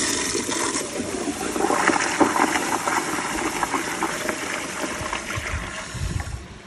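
Kohler Kingston toilet flushing through its exposed flush valve: a steady rush of water swirling through the bowl and drawing a rag down the trapway in one flush, easing off near the end as the bowl settles.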